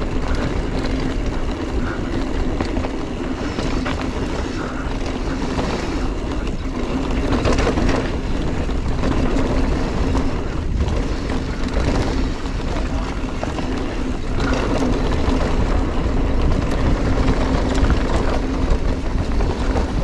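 Giant Trance 3 mountain bike descending a dirt trail at speed: knobby tyres rolling over packed dirt, with heavy wind rumble on the camera mic and a steady hum underneath. Short knocks and rattles come through as the bike hits bumps.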